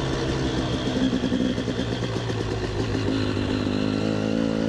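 KTM 300 EXC two-stroke single-cylinder enduro bike engine running under way, heard on board, at a steady part-throttle pace with the pitch wavering and rising slightly in the second half.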